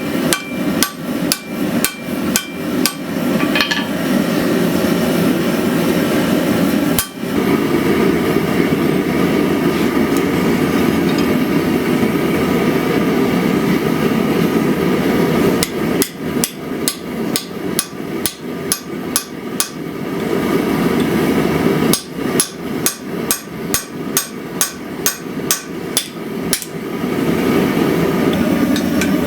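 Hammer blows forging hot Damascus steel, about three strikes a second, in three runs with a pause of several seconds between the first and second. Under them the forge runs with a steady rushing noise.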